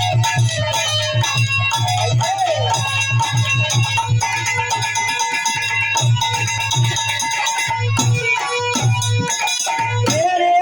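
Instrumental folk music: a keyboard melody over a steady, regular drum beat. A singing voice comes in near the end.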